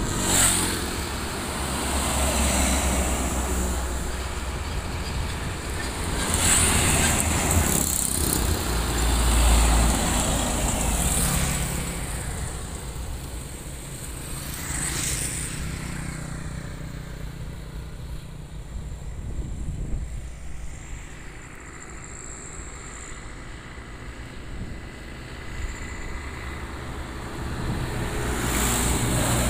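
Highway traffic: heavy trucks and motorcycles passing close by, each going by as a swell of engine and tyre noise. Several passes come in the first half, then a quieter lull, and another vehicle approaches near the end.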